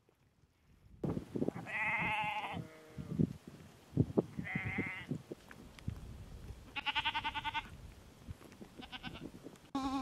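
Sheep and goats in a flock bleating, about four wavering calls a couple of seconds apart, with a few sharp knocks in between.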